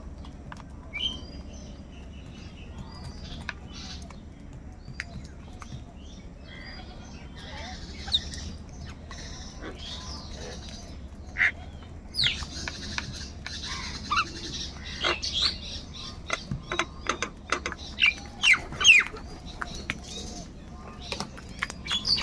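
Flock of house crows feeding, giving short harsh caws that come few and far apart at first, then thick and loud over the second half. Small birds chirp faintly in between.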